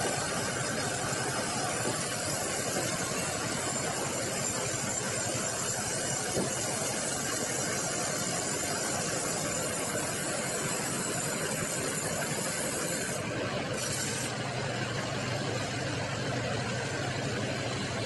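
Sawmill band saw running steadily while sawing bengkirai hardwood into slabs, a dense mechanical noise with a fixed high whine. About two-thirds of the way through, the highest hiss drops away and a low steady hum comes up.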